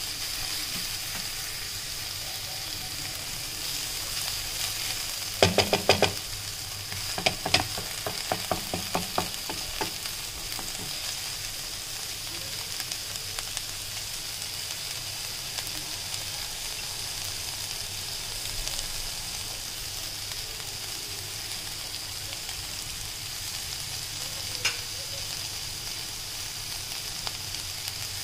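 Shredded cabbage and green capsicum sizzling steadily in a nonstick kadai, with a wooden spatula clattering against the pan in two quick runs of clicks about five to ten seconds in, and one more tap near the end.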